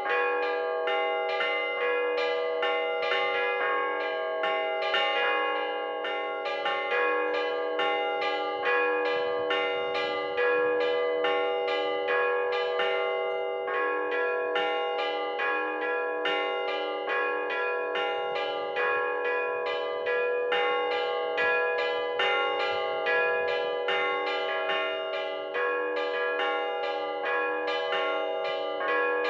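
Russian Orthodox church bells, the podzvon (middle-sized) bells, rung by hand in a steady, rapid pattern of strikes, each bell ringing on under the next.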